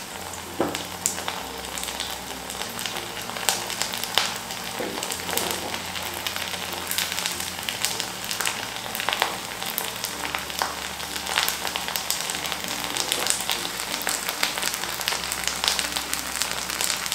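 Sun-dried leftover-rice badi deep-frying in hot oil in an aluminium kadhai: a steady sizzle full of sharp crackling pops as they puff up, while a wooden spatula turns them in the oil.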